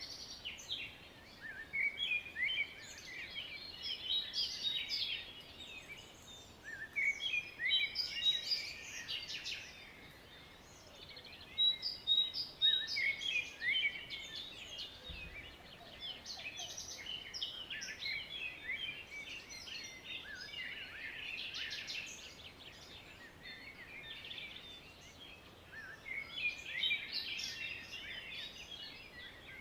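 Several songbirds chirping and singing at once, in overlapping bouts of quick high notes and trills that come and go every few seconds, over a faint steady background hiss.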